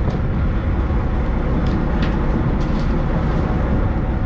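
A fishing boat's engine running steadily, a continuous low rumble heard from the deck, with a few faint light clicks scattered through it.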